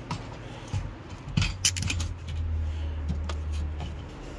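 Plastic fuel pump assembly being worked down into the fuel tank opening: a few light clicks and rattles of plastic and metal as it is fitted into place, with a low steady hum underneath through the middle.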